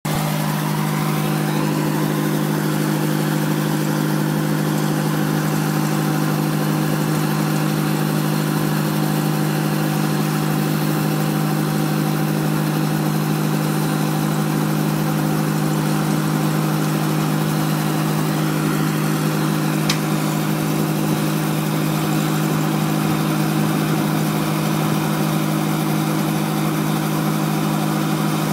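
Robinson R22 helicopter's piston engine running steadily on the ground before lift-off, an even drone with a constant low pitch.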